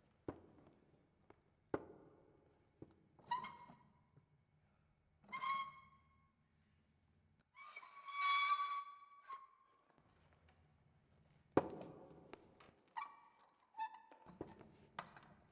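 An acoustic guitar and a stool being knocked about in slapstick handling: several sharp knocks and thumps, and short ringing squeaks at one pitch, the longest and loudest about eight seconds in.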